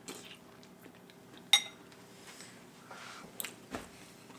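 Quiet chewing of a mouthful of food, with a fork clicking sharply against a ceramic bowl about a second and a half in and a few lighter clicks near the end.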